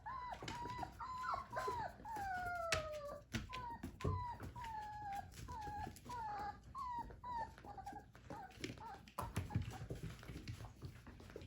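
Four-week-old puppies whining: a run of short, falling whines at about two a second, with one longer falling whine about two to three seconds in. Scattered clicks and knocks run under them.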